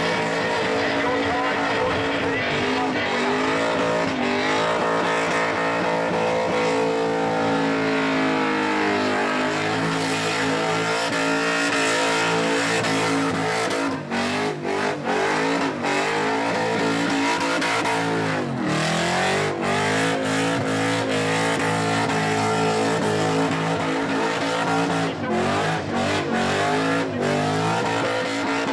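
V8 Holden Commodore doing a burnout: the engine is held high in the revs with the rear tyres spinning and squealing. The revs drop and climb back several times.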